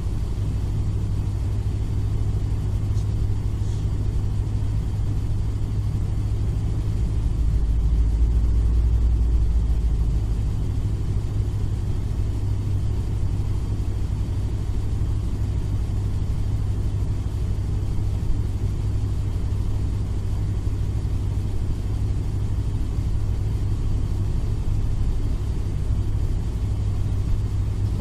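AE86 Trueno's swapped-in five-valve 4A-GE engine idling in traffic, heard inside the cabin as a steady low hum. A deeper rumble swells for a few seconds about a quarter of the way in.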